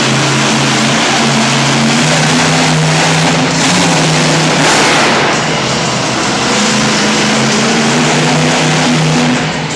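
Grave Digger monster truck's supercharged V8 engine running loud as the truck drives around the dirt arena floor, its pitch stepping up and down with the throttle and swelling briefly about halfway through.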